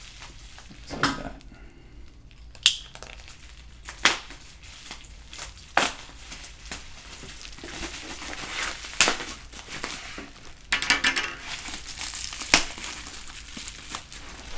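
Bubble wrap around a wrapped Go board crinkling as the package is handled and lifted, with scattered sharp crackles and a denser burst of crackling near the end.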